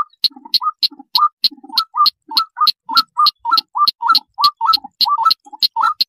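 Red-legged crake call played as a trapping lure: a fast, steady series of short, hard notes, about five a second.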